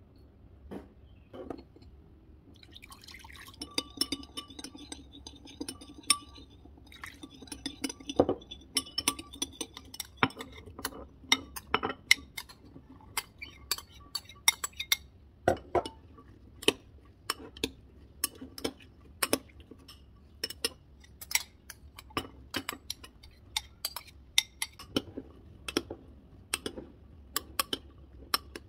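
Metal spoon stirring vinegar in a small glass bowl, clinking against the glass with a ringing tone. From about ten seconds in, diced cucumber and carrot are tipped into the bowl and tossed with the spoon, with frequent sharp, irregular clinks of spoon on glass.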